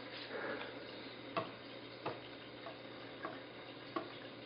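Light taps of a baby's hands on a wooden high-chair tray, about five in all, spaced roughly two-thirds of a second apart, over a faint steady hum.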